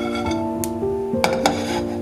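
Soft background music with held piano-like notes. Over it come three short clicks and scrapes of a wooden spatula stirring slivered almonds in a nonstick frying pan.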